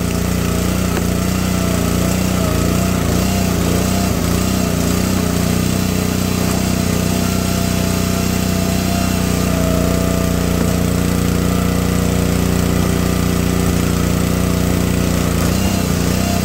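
Gravely 22-ton log splitter's small gas engine running steadily while its hydraulic wedge is driven down through a large ash round. A few higher tones join in from about nine seconds in as the splitter works through the wood.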